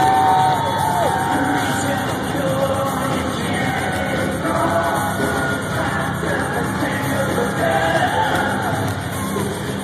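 Rock band playing live, loud and dense, with a singer's voice over guitars and drums, heard from among the audience.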